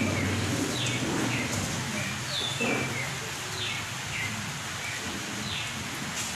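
Small birds chirping, a string of short falling chirps repeated every half second or so, over a low steady hum.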